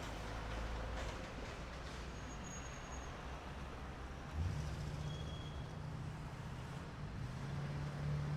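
Suburban street ambience: a motor vehicle's engine running with a steady low rumble over a hiss of traffic, with a short low thump about halfway through.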